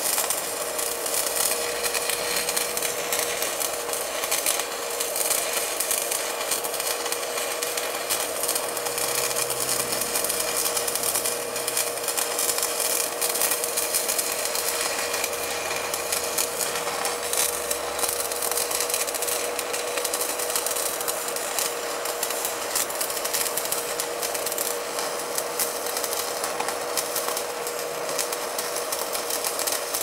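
A steady crackling hiss with a constant humming tone, from a copper-to-aluminium joint in a Wago lever connector overloaded with about 170 amps, with the wire overheating and smoking.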